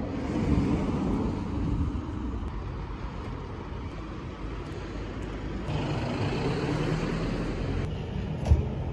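City street traffic: steady road noise and vehicle engines running, with one engine hum coming in louder about six seconds in. A single sharp knock near the end.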